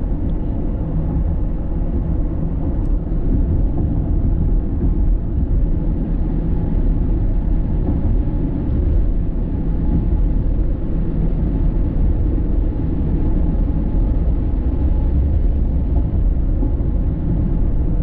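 Car driving at a steady speed: a steady low rumble of road and engine noise.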